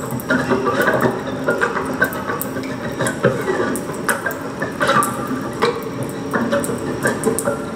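Tap shoes striking the stage floor in irregular clicks and scuffs, over a watery, trickling sound.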